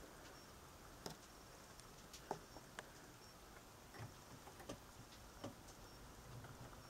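Near silence with a handful of faint, sharp clicks and taps scattered through it, the sharpest about two seconds in.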